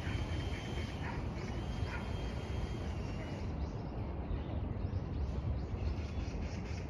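Outdoor ambience: a steady low rumble with faint, short bird chirps repeating a few times a second, thicker in the second half.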